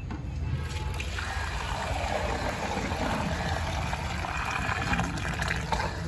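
Buffalo milk poured from a metal pail into a steel pot, a steady splashing stream that starts about a second in and stops just before the end.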